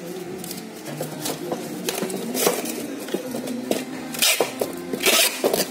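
Packaging being handled: irregular rustling and crinkling of plastic and paper with small knocks, loudest about two and a half seconds in, a little after four seconds and just after five seconds, over faint steady tones in the background.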